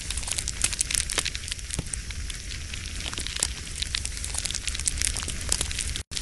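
Fire crackling, with dense sharp pops over a steady low rumble. It cuts out for an instant near the end.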